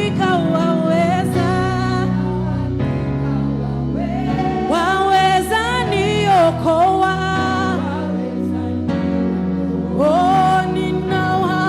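Live gospel worship music: a lead voice sings long, drawn-out phrases over steady sustained band and keyboard backing, with pauses between the phrases where only the accompaniment carries on.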